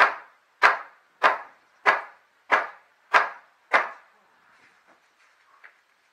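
Hammer striking old wooden roof boards: seven evenly spaced blows about two-thirds of a second apart, stopping about four seconds in, followed by faint taps and scraping on the planks.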